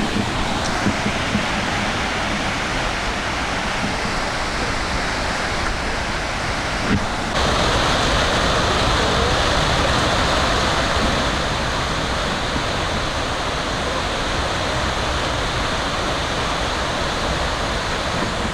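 Waterfall in full flow after heavy rain, a steady rush of falling water. It turns suddenly louder and brighter about seven seconds in.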